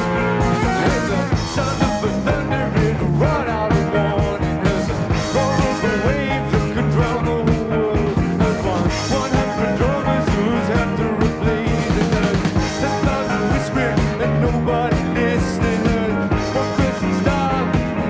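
Rock band playing live: drums keep a steady beat under electric bass and electric guitars.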